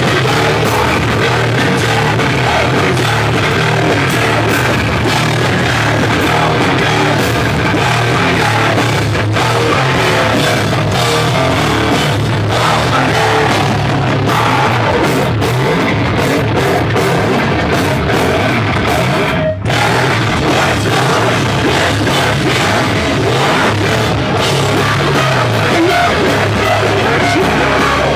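Metalcore band playing live: loud, dense distorted electric guitars and drum kit with vocals, dipping for an instant about two-thirds of the way through.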